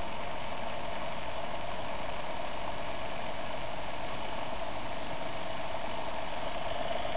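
MG2 Bedini-style pulse motor with a flywheel, spinning a 120 mm DC cooling fan on its axle: a steady whir of the fan blades and motor.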